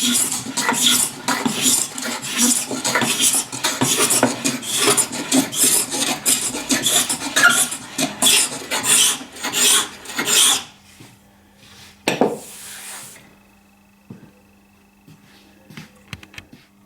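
Quick rasping strokes of a hand tool, about two or three a second, stopping about eleven seconds in. A single knock follows about a second later, then a few light clicks over a faint steady hum.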